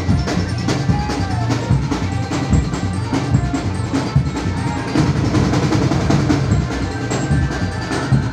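Music for a jaran kencak dancing-horse performance: busy, driving drums and struck percussion, with a melody line over them.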